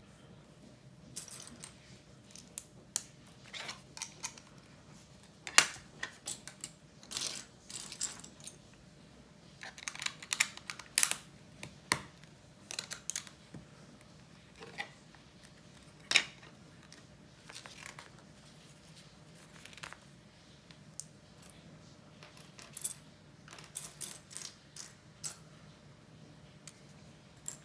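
Plastic Lego bricks clicking and clattering as pieces are picked from a loose pile, set down and pressed onto a base plate: irregular sharp clicks, some in quick clusters, the loudest about five and sixteen seconds in.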